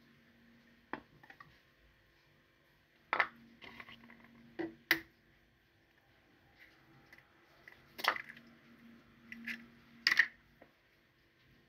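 An egg tapped and cracked against the rim of a small plastic bowl, with knocks of the bowl and shells being handled: a handful of separate sharp clicks and taps, the loudest a little after three seconds, about eight seconds and about ten seconds in.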